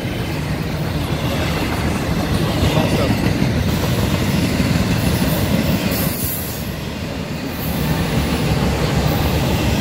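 Double-stack intermodal well cars of a CSX freight train rolling past: a steady low rumble of steel wheels on rail with clatter from the cars, easing briefly about six seconds in.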